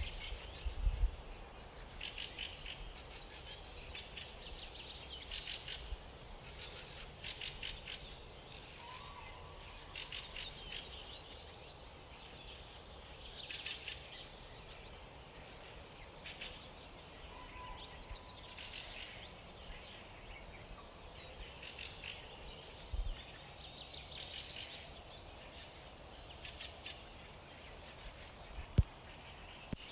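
Several small birds chirping and trilling in an outdoor chorus, calls overlapping throughout over faint background noise. A couple of brief low thumps come near the end, the last the loudest single sound.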